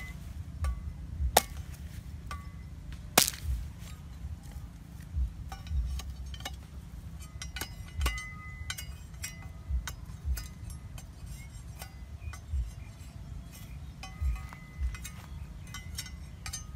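A machete blade chopping and scraping at a green bamboo pole, trimming it: irregular sharp knocks and clicks, some with a dull thud beneath.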